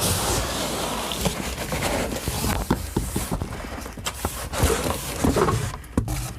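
Cardboard and packing material rustling and scraping as a heavy boxed power amplifier is worked out of its double box, with scattered knocks and clicks in the second half.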